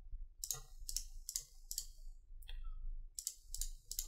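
Computer mouse button clicking about eight times in an uneven series, short sharp clicks.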